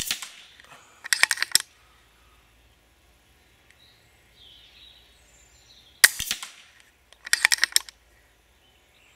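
FX Impact PCP air rifle in .177 firing at a target: a shot's sharp report is dying away at the start and a second shot cracks about six seconds in. About a second after each shot comes a quick run of metallic clicks from the side lever being cycled to load the next pellet.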